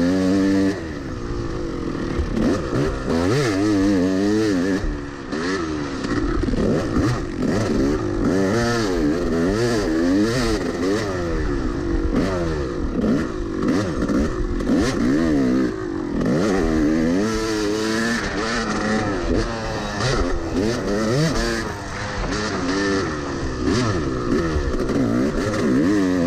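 Yamaha YZ250 two-stroke motocross bike heard from onboard, its engine revving up and dropping off again and again as the rider works the throttle and shifts gears.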